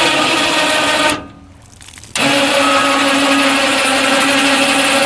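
Electric motor of an Ag Spray truck-mounted hose reel running with a steady whining hum. It cuts off about a second in, then starts again a second later at a slightly lower pitch as the reel switch is worked.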